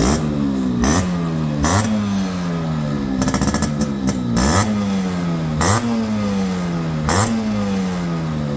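Yamaha RX two-stroke single-cylinder motorcycle engine being revved in repeated throttle blips. Each rev climbs sharply and then falls back over about a second, with a crack at the top of each blip, about once a second throughout.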